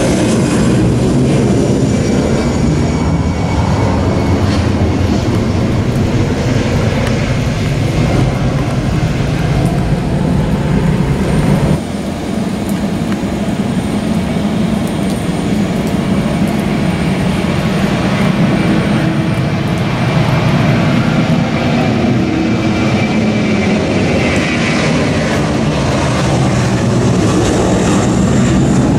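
Steady, loud jet airliner engine noise, with a sudden drop and change in the sound about twelve seconds in.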